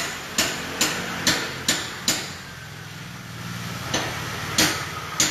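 Hammer striking metal in an even rhythm, about two blows a second, as the spring seat of a front coilover is knocked tight. The blows stop for about two seconds, when a low steady hum is heard, then three more follow near the end.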